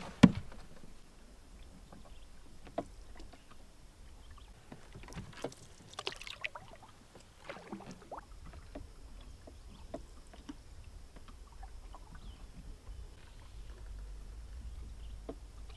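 Canoe being paddled on a calm lake: soft paddle strokes and water splashes and drips, with scattered light clicks. A single sharp knock sounds just after the start.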